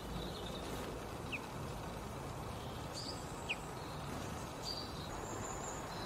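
Small garden songbirds giving a few short, high chirps, with two brief down-slurred notes about one and a half and three and a half seconds in, over a steady low background noise.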